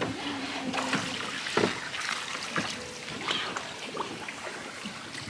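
Light water splashes and trickling, with scattered soft knocks, around a small wooden boat as a fishing trotline is drawn up out of the canal and the boat is poled.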